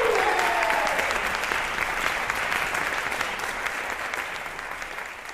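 Audience applauding after a brass choir performance, with a falling cheer over the clapping in the first second; the applause thins and dies away toward the end.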